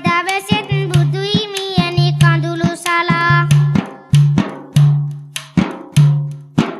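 A boy chanting a Sinhala virindu verse in a wavering, ornamented voice over a hand frame drum (rabana) beating a steady rhythm. The voice stops about four seconds in, and the drum plays on alone for a few ringing strokes.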